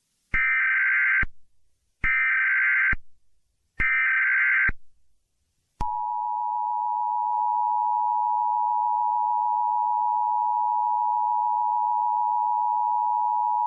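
Emergency Alert System tones. Three short bursts of SAME digital header data come about a second apart, then about six seconds in the long, steady two-tone attention signal starts.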